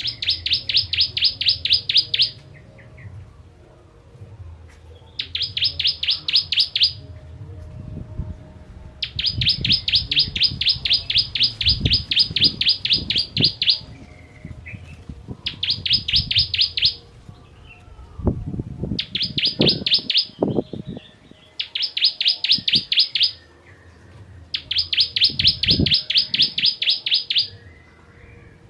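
Ciblek kristal (a prinia) singing its rapid, sharp trill in repeated bursts of one to several seconds, seven times, with short pauses between.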